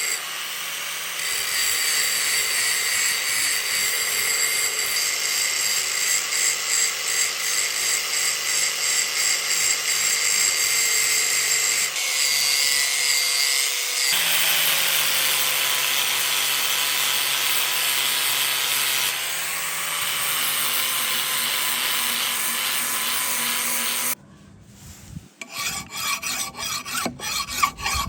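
A grinder or sander working steel: a steady rasping with a motor whine, changing abruptly a few times. About 24 seconds in it gives way to quicker, uneven rasping strokes, like filing or hand sanding.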